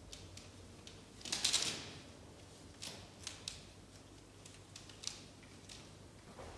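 Light clicks and knocks from a white PVC-pipe climbing frame as a baby monkey clambers over it, with a short rapid rattle about a second and a half in and a few scattered taps after.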